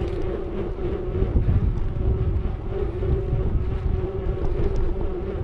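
Wind buffeting the microphone over the low rumble of mountain bike tyres rolling along a narrow paved path, with a steady hum from the tyres.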